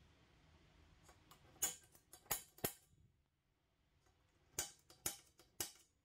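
Sharp metallic clicks of a center punch point on a steel square tube: four short clicks about one and a half seconds in, then another group of three about four and a half seconds in.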